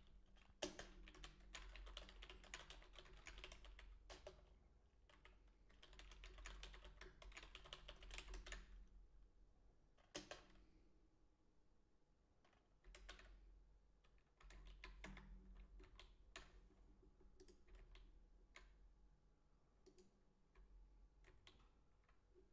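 Typing on a computer keyboard: fast runs of keystrokes in the first half, then slower, scattered key presses.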